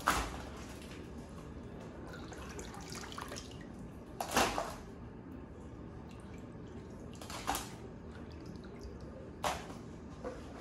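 Water sloshing and dripping in a plastic tub as hands rinse live blue crabs and lift them out, with four short splashes.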